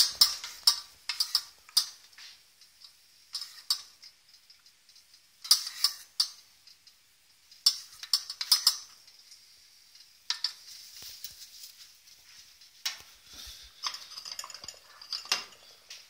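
Metal spoon clinking and scraping against the inside of a stainless steel pot while stirring melting chocolate. The clinks come in irregular clusters.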